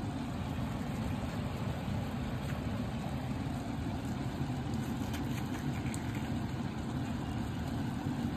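Steady low hum of a running kitchen appliance, with a few faint scrapes about halfway through as a metal spoon hollows out a squash.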